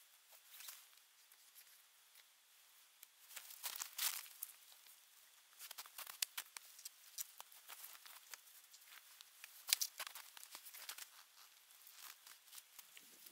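Faint, scattered rustling and crackling as people handle the sticks of a wooden smoking rack and lash it with cord, with short louder crackles about four seconds in and again near ten seconds.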